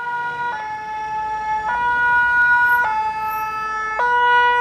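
French two-tone emergency siren on a fire-brigade ambulance, alternating steadily between a higher and a lower note, each held for a little over a second.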